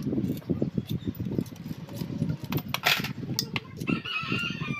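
Metal tools and aluminium engine-case parts clinking and knocking while the crankcase of a Suzuki Smash 115 motorcycle engine is worked apart by hand, with a short high chirp near the end.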